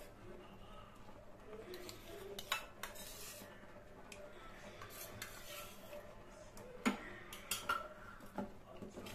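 Spatula stirring thick sauce in a steel kadhai, with scattered clicks and scrapes as it knocks and drags against the pan, a few of them sharper about two and a half seconds in and again near seven seconds.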